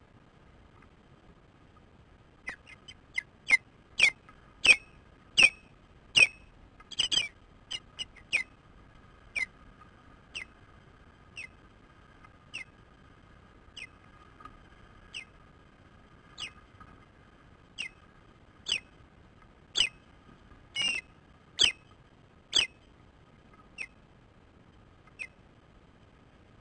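Osprey calling: a long run of short, high-pitched whistled chirps, about one or two a second, starting about two seconds in, loudest in two spells, and thinning out near the end.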